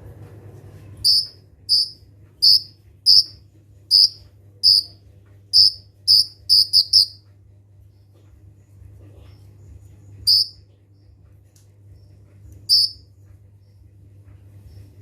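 Brown-throated sunbird (kolibri ninja) giving a rapid series of short, sharp high chirps, about eleven in six seconds and quickening into a burst, then two single chirps a few seconds apart. A steady low hum runs underneath.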